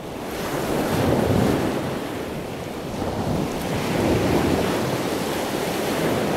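Ocean surf: waves breaking in a continuous rush that swells about a second in and again around four seconds.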